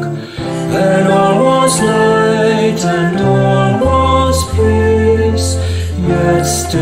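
Hymn music: the accompaniment holds sustained chords, and the bass moves lower about four seconds in.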